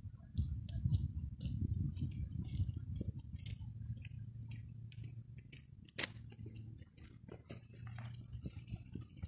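Footsteps on a path, about two a second with one sharper click about six seconds in, over a steady low rumble of wind and handling on the microphone.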